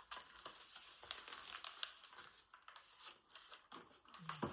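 Cardboard and paper packaging being handled and opened by hand: faint crinkling, tearing and small clicks and scrapes.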